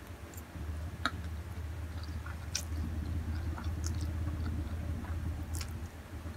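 A person chewing a mouthful of Samyang spicy instant noodles close to the microphone, with scattered wet mouth clicks and smacks over a steady low hum.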